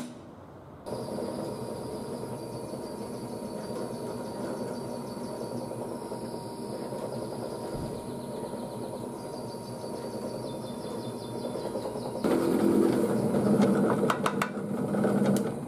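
A hammer taps a center punch once, then a small bench drill press motor starts and runs with a steady hum and whine. About twelve seconds in it gets louder and rougher with a rattle, the bit cutting into the hardened file-steel blade, and it stops just before the end.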